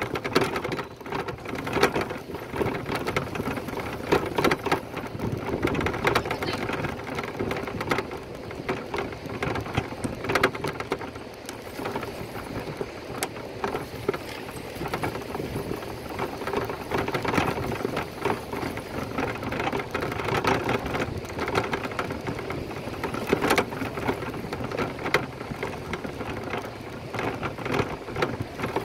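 Noise of a bike ride: a steady rush thick with rapid small clicks and rattles.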